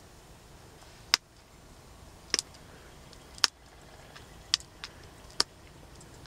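Pressure flaking a stone arrowhead with an antler tine on a leather pad, thinning its base: about seven sharp clicks, roughly a second apart, as small flakes snap off.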